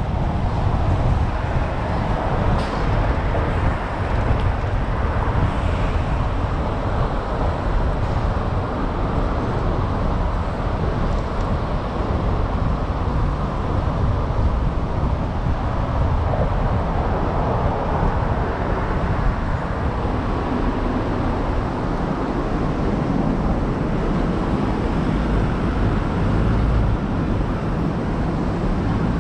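A car driving in city traffic: steady rumble of tyres, engine and surrounding traffic.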